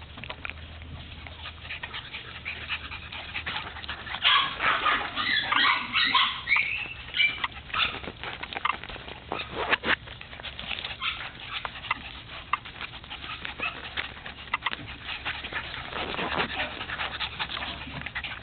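Cock-a-poo puppies making high-pitched whimpering calls, loudest in a cluster from about four to seven seconds in, with scattered short clicks throughout.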